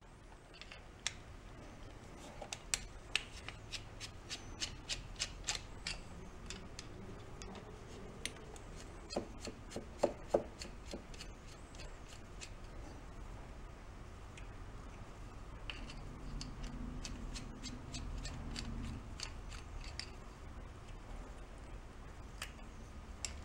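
A thin screwdriver and fingers working at the small metal sensor terminals in the center of a pressure cooker's heating plate: faint scattered metallic clicks, ticks and scrapes, with a few sharper clicks about ten seconds in.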